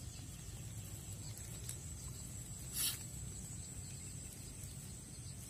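Quiet outdoor ambience: a steady, high, thin insect drone over a low rumble, with one short burst of noise a little before the three-second mark.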